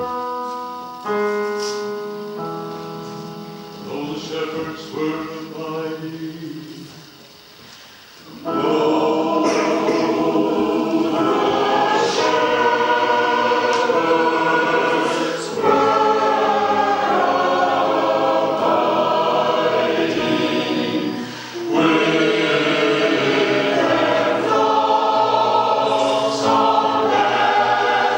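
A keyboard plays an introduction of held chords for about eight seconds, then a mixed community choir comes in singing a traditional Cornish chorus carol to that accompaniment.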